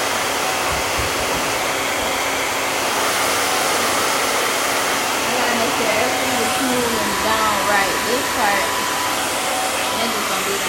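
A hair dryer blowing steadily. A faint voice is heard under it from about halfway through.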